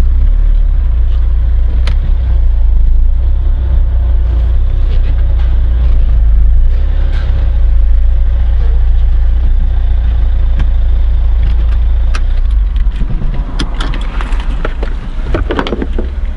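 Steady low rumble of a car driving slowly, heard from inside the cabin. About three-quarters of the way through the rumble eases off as the car comes to a stop, and a few short clicks and knocks follow.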